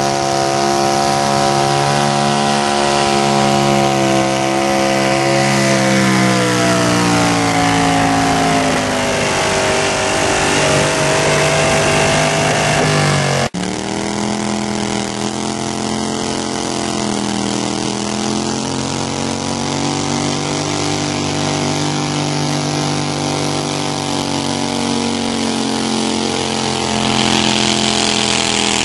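Twin-cylinder altered garden tractor engine running hard under load in a pull, its pitch sagging and then climbing again. About halfway through the sound breaks off abruptly, then an engine runs on, its pitch wavering.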